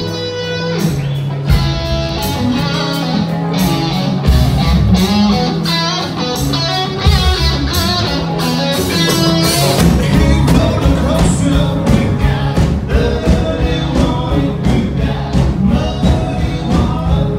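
Background music: a song with guitar, a steady beat and singing.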